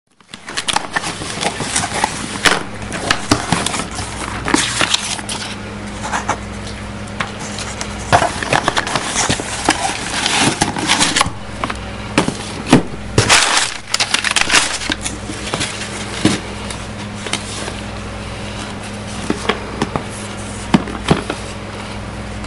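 Hands handling a phone's retail box and its packaging: irregular rustling, scraping and sharp clicks and knocks, with a steady low hum underneath.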